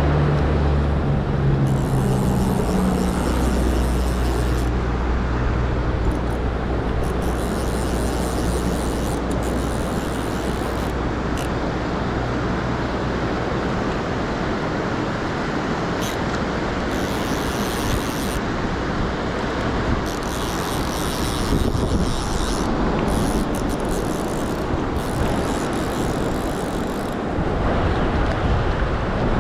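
Steady rush of river water. A vehicle's low engine drone sounds under it for the first several seconds, then fades.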